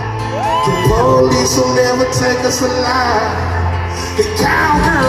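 Live band music with a singer holding and sliding through long vocal runs over steady chords and bass.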